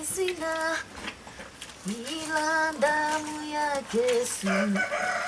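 A voice singing a slow tune in long held notes, with short pauses between phrases.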